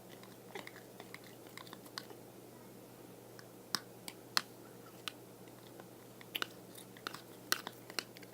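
Glue slime being mixed and kneaded with activator by hand, making scattered wet clicks and small pops, with more of them in the second half.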